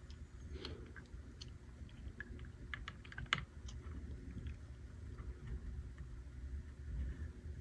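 Scattered small clicks and taps of a transmission valve part being worked into its bore in an AX4S aluminium valve body, with one sharper click about three seconds in.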